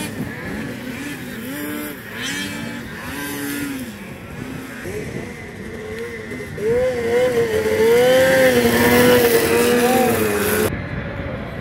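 Racing snowmobiles' 600 two-stroke engines revving up and falling off again and again over the jumps. From about seven seconds in, a louder engine holds high revs, wavering, until the sound cuts off abruptly near the end.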